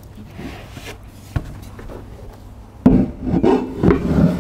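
Teak cockpit table being fitted onto its pedestal: a small click, then a sharp wooden knock about three seconds in, followed by bumping and rubbing as the table is seated.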